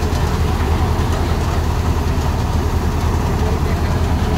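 Tractor-driven paddy thresher running steadily while rice sheaves are fed into it: a continuous low engine drone with the rattle and rush of the threshing drum and fan.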